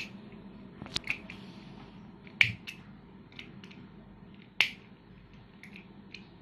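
Small plastic Smurfs 2 Kinder Joy toy clicking as its bottom stem is pressed to flip the picture: a handful of sharp clicks, the loudest about two and a half and four and a half seconds in.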